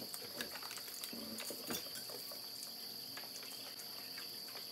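Light clicks and taps of chopsticks and a plate at a tabletop electric grill, over a steady high-pitched tone.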